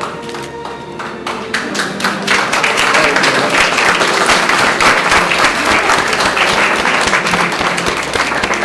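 A crowd applauding, a dense patter of many hands clapping that swells about two and a half seconds in.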